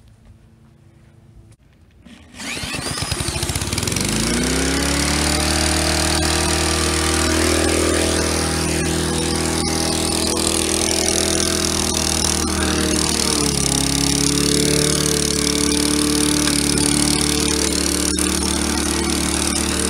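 Briggs & Stratton Quantum single-cylinder lawnmower engine starting about two seconds in, climbing quickly to full speed and then running steadily at full throttle. About two-thirds of the way through, its pitch dips slightly and holds there. The engine is being restarted while still hot from being run until it overheated.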